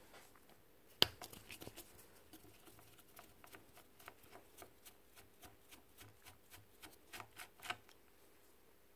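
Hand screwdriver driving in the screws that hold a miter saw motor's bearing assembly, with light clicking: one sharp click about a second in, then a steady run of small ticks about two a second, quickening near the end.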